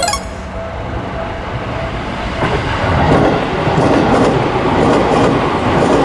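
A train passing over a level crossing: wheel and rail noise swells from about two and a half seconds in, with a regular clatter of wheels over the rail joints. A sharp metallic click comes at the very start.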